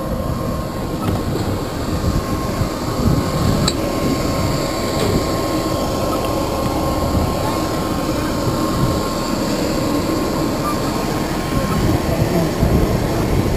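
Steady whine and rumble of an aircraft turbine engine running, with a thin steady tone through it, and wind gusting on the microphone.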